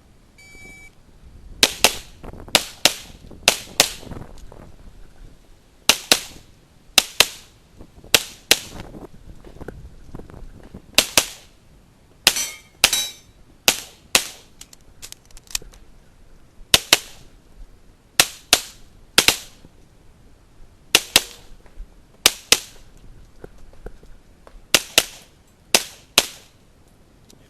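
A short electronic shot-timer beep just under a second in, then a handgun fired in quick pairs and short strings, about two dozen shots in all, with pauses of a second or two between groups.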